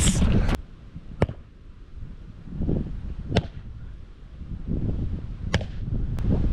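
A man's voice, cut off about half a second in. Then a hammer striking a wooden post-and-rail fence: a few sharp knocks one to two seconds apart, with duller thuds between them, over wind rumbling on the microphone.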